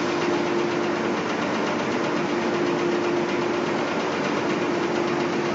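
Copper strip upcasting machine running: steady machine noise with a constant hum held throughout.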